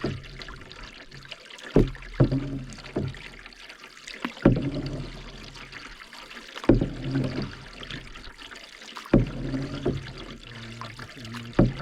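Canoe paddle strokes in lake water, a stroke about every two and a half seconds. Each starts with a sharp knock and splash, followed by water trickling and dripping.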